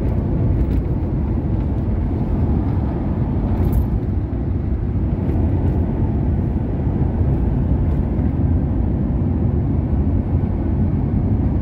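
Steady engine and tyre noise of a car driving at road speed, heard from inside the cabin.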